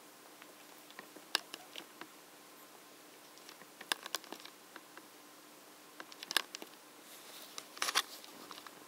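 Faint scattered clicks and brief rustles from a litter of newborn Tibetan terrier puppies stirring in a pile on a blanket, over a faint steady hum. The clicks come in small clusters, the longest rustle near the end.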